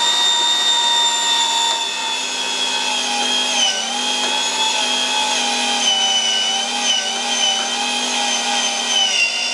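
White electric meat grinder running, grinding chilled fatty pork through its coarsest plate: a steady motor whine whose pitch sags briefly a few times.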